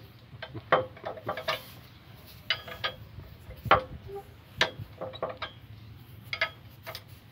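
Metal hand tool clinking and tapping against the bolts and steel of an excavator's track chain guard as it is worked on: irregular, sharp metallic clicks, some ringing briefly.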